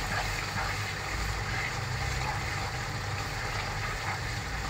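Oily tomato stew simmering and sizzling in a nonstick pan while a wooden spatula stirs it, over a steady low hum.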